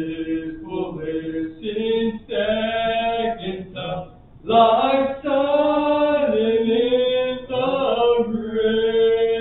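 Unaccompanied singing of a slow melody in phrases with long held notes, ending on a note held for about two seconds.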